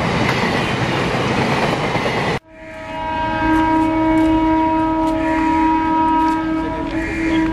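Empty container flat wagons of a freight train rushing past close by, a loud steady rumble and clatter of wheels on rail. Cut off abruptly about two and a half seconds in, followed by an approaching electric locomotive sounding a long, steady multi-tone horn.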